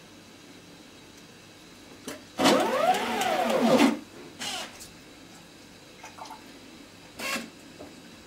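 Inebriator cocktail machine's motor-driven glass carriage travelling along its rail, the motor's whine rising in pitch and then falling as it speeds up and slows to a stop at the first bottle. Two shorter mechanical noises follow, about a second and about three and a half seconds later, as the machine starts pouring.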